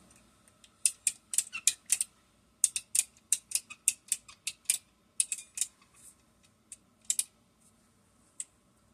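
A string of sharp, light clicks and ticks, about three a second in uneven runs, then a few scattered ones: small plastic or metal parts being handled.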